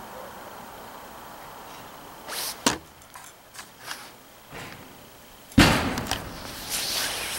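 Dry-tooling ice axes knocking and scraping against the holds and wall: a sharp clack about two and a half seconds in, a few light clicks, then a loud knock followed by scraping in the last two seconds.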